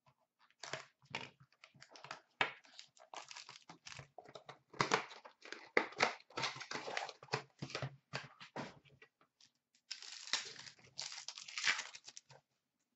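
A 2015-16 Upper Deck Contours hockey card box being torn open and its foil-wrapped packs handled: irregular crackling, rustling and snapping of cardboard and wrapper, with a longer run of crinkling about ten seconds in.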